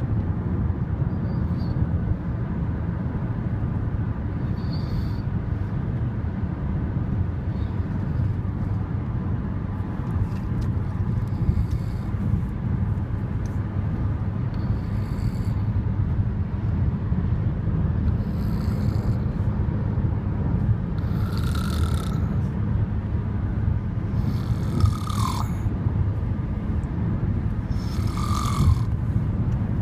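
A person snoring very heavily, with a rasping breath about every three and a half seconds over a constant low rumble. A few of the later breaths carry a short whistle.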